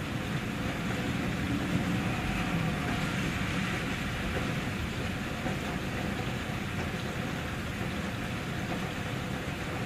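Steady rain falling, with a low rumble underneath that swells a little about two seconds in.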